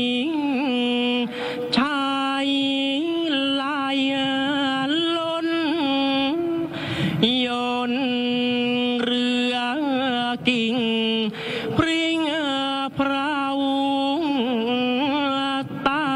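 Thai royal barge chant (kap he ruea): a single voice singing long, drawn-out notes with wavering, bending ornaments, breaking briefly for breath about seven and twelve seconds in.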